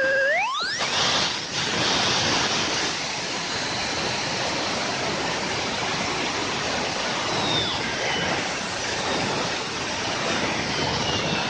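JetCat P-20 micro turbojet spooling up from idle: its whine climbs steeply in pitch within the first second, then it runs at full power, near 246,000 rpm, as a steady loud rushing jet noise.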